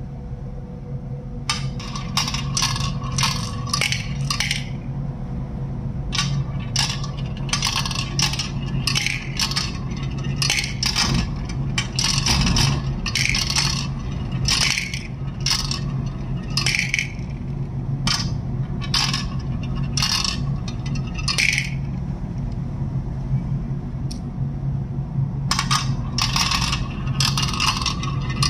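Plastic marbles clattering down a plastic marble run and dropping into a toy tractor's plastic trailer, knocking against each other and the trailer bed. The clicks come in runs with pauses between them, over a steady low hum.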